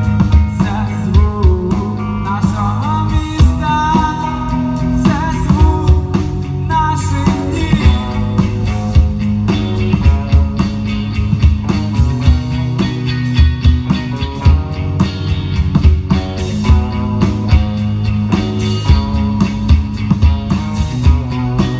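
A live rock band playing: drum kit and electric guitars with a steady low line underneath. A lead melody bends in pitch over the first several seconds, then the playing settles into a steadier groove.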